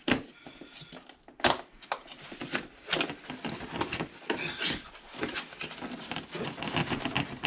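Cardboard box being shaken and handled while a tray of spanners is worked out of it: scraping and rustling with quick clicks, and two sharp knocks, the first right at the start and the louder one about a second and a half in.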